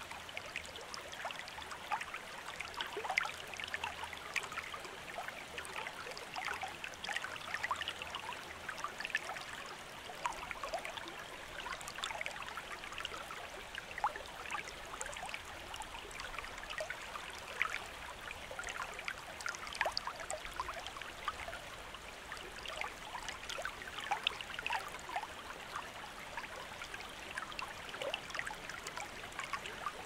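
A small stream of water flowing steadily, a continuous gentle rush dotted with many small gurgles and splashes.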